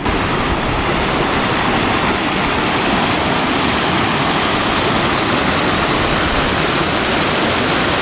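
Steady, loud rush of fast-flowing water.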